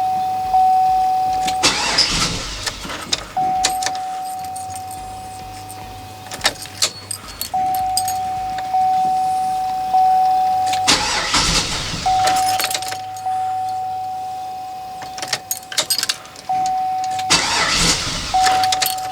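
2005 GMC Yukon Denali XL's 6.0 V8 being cranked three times in short bursts without firing: it turns over but won't start, a no-start that turns out to come from no fuel pressure and a failed fuel pump. Between the cranks a steady high warning tone sounds, and it drops out during each crank.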